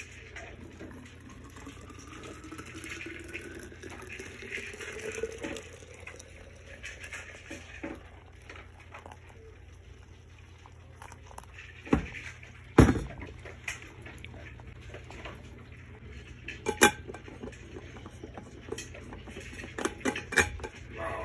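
Water poured from a kettle into a steel Stanley vacuum flask, the pitch of the filling rising as the flask fills. Then a few sharp metal clinks and knocks as the flask and its cap are handled, the loudest about halfway through.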